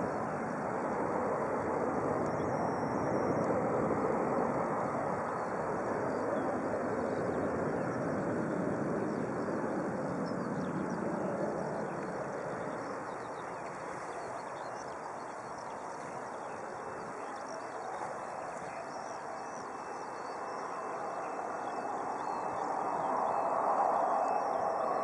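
Jet engines of a twin-engine airliner climbing away after takeoff: a steady rumbling roar that slowly fades, then swells again briefly near the end.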